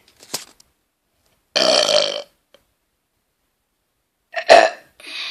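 A person burping twice: a long burp a second and a half in, then a shorter, louder one near the end.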